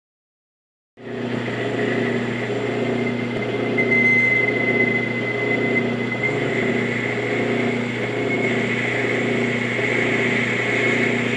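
Metal lathe running while drilling a 3/4-inch hole into brass bar stock: a steady hum with a pulsing beat about twice a second and a faint high whine from the cut. It starts abruptly about a second in.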